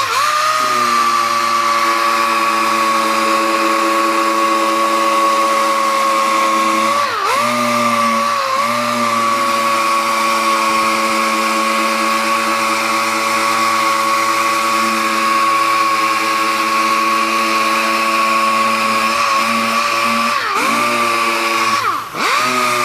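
Air-powered random orbital sander running on a sealer-coated wood surface: a steady high whine over a hiss of air. The pitch dips briefly about seven seconds in, again a second later, and twice near the end as the pad is pressed or eased.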